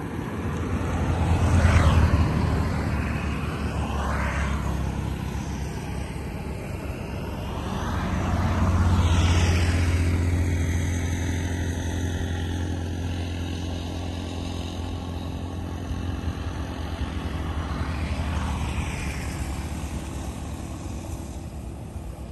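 Motor vehicles passing by, each one swelling and then fading with a falling pitch as it goes past. The loudest passes come about two seconds in and around nine seconds, with smaller ones near four and nineteen seconds. Under them runs a steady low engine hum.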